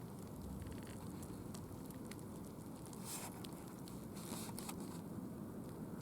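Footsteps crunching on dry leaves and twigs of a forest floor: scattered crackles and rustles over a steady low rumble, with fuller rustles about three and four seconds in.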